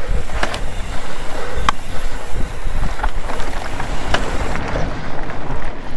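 Mountain bike rolling fast over a dry, rough dirt trail: steady tyre and frame rumble with a few sharp knocks and rattles from the bike, and wind buffeting the handlebar-mounted microphone.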